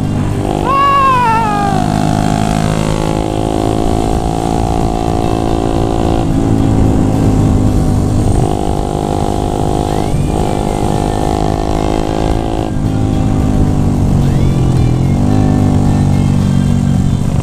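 Bored-up 177cc Yamaha Jupiter MX single-cylinder engine running under way, heard from the rider's seat at moderate throttle because the freshly built engine is not yet being pushed. Its pitch steps a few times, and about three-quarters of the way through it dips and then climbs again.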